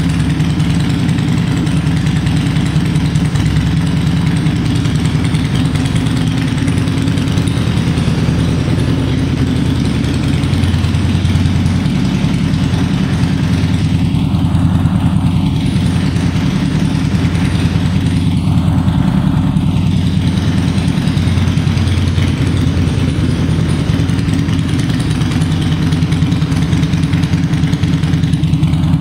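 A 2003 Harley-Davidson Fat Boy's Twin Cam 88B V-twin idling steadily.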